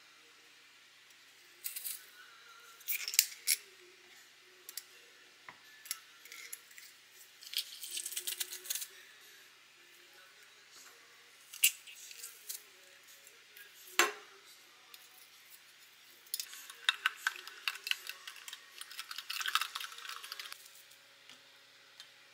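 Stainless steel hand-held garlic press being worked: a series of metallic clicks and clinks as the handles open and close, with crackly squeezing bursts as garlic cloves are forced through. There is one sharp knock about two thirds of the way through.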